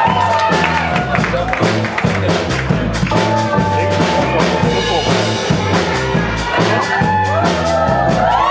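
Live band playing the instrumental intro of a pop-rock song: drum kit and bass with a steady beat.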